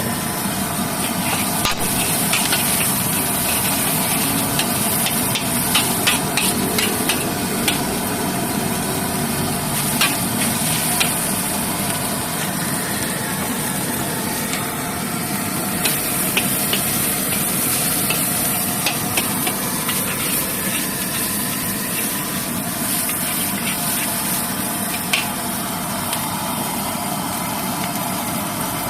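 Fried rice cooking in a street vendor's wok: a steady hiss of sizzling, with metal spatula clinks and knocks on the wok scattered throughout.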